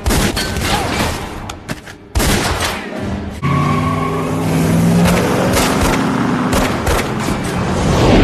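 Action-film soundtrack: rapid gunfire over running vehicle engines, with a film score. A steady low sustained tone joins about three and a half seconds in.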